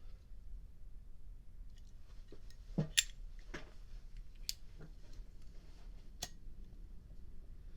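Light metallic clicks and clinks from a Zippo Slim lighter's case and insert being handled: about six sharp ticks spread over a few seconds, the loudest about three seconds in.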